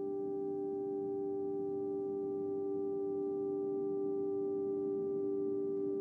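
Sustained drone of several steady, pure tones over a faint hiss, with no struck notes, from a piece for piano strings and live electronics.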